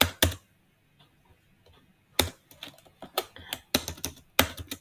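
Typing on a computer keyboard: two clicks at the start, then after a pause a quick, uneven run of about a dozen keystrokes.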